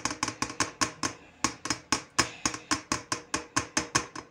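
A spoon knocks and scrapes against a plastic bowl in quick, even strokes, about four or five sharp clicks a second, as thick tomato sauce is pushed out of the bowl into a pot.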